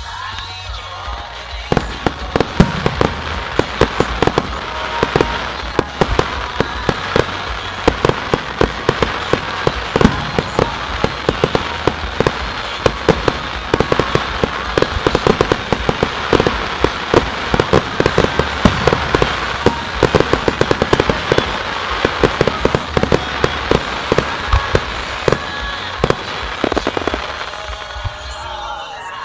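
Fireworks display: a rapid barrage of sharp bangs and crackles from comets and aerial shells. It starts about two seconds in and thins out near the end, with music playing underneath.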